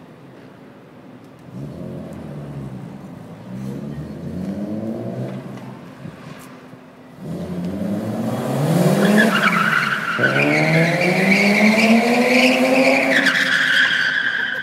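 BMW E36 coupé drifting: the engine revs up in rising runs, and from about eight seconds in the tyres squeal through a long slide over the rising engine. The squeal drops lower near the end.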